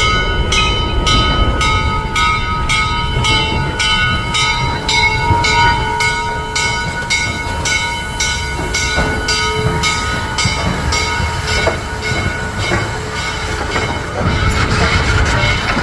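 Steam locomotive's bell ringing steadily at about two strokes a second over a low rumble, dying away near the end.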